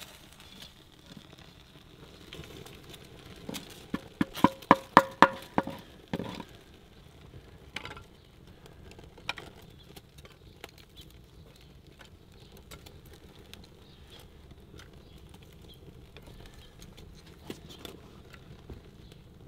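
Wood knocking while a kindling fire is fed: a quick run of about eight sharp knocks around four to six seconds in, then scattered faint clicks as small sticks are laid on.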